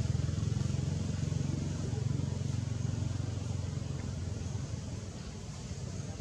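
Steady low rumble, easing slightly about five seconds in.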